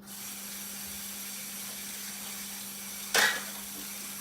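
A steady hiss, with one short, loud crackling burst about three seconds in.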